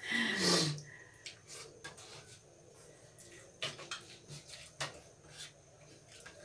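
Eating by hand: faint scattered clicks and taps of fingers working food on a plastic plate, with small chewing and mouth sounds. It opens with a brief vocal sound that falls in pitch.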